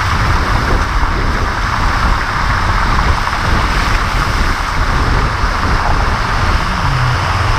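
Car tyre driving through shallow floodwater: a steady hiss of splashing and spray, with a low rumble underneath.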